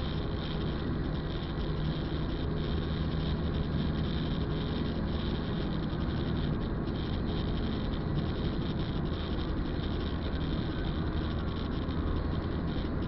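Car interior noise while driving on a wet road: a steady low engine and drivetrain hum with the hiss of tyres on wet asphalt, unchanging throughout.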